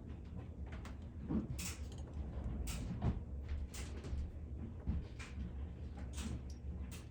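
Light clicks and knocks of small tools and wires being handled during soldering, about one every half second to a second, over a steady low hum.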